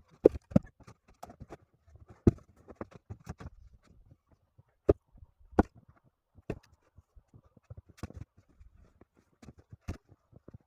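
Pine log ends knocking as they are tossed one by one onto a pile, a string of sharp wooden knocks at irregular intervals.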